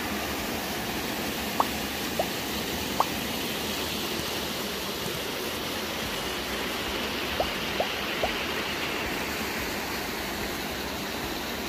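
Steady rushing of water from a small waterfall spilling over a low weir into a river. A few short ticks sound over it, three in the first few seconds and three more past the middle.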